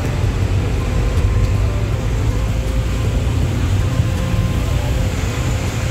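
Steady engine and tyre rumble heard from inside a car's cabin as it drives through a road tunnel.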